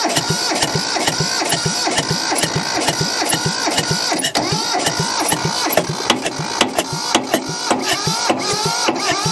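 Mitsubishi tractor's two-cylinder diesel engine being cranked over by its starter, an even rhythmic chugging of compression strokes that never settles into running. It is a hard start on preheated glow plugs and ether, the engine seemingly not getting enough fuel to run on its own.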